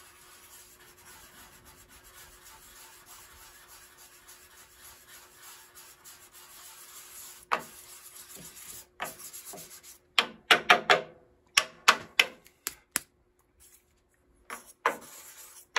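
Sandpaper on a block rubbed back and forth by hand over the built-up finish of a wooden piano case, levelling out low spots. Faint at first, then quick, louder scratching strokes from about halfway, densest around two thirds through.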